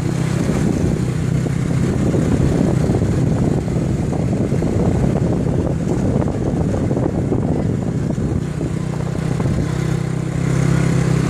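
Small motorcycle engine running steadily while riding, heard from the pillion seat with wind rumbling on the microphone. The engine note grows stronger near the end.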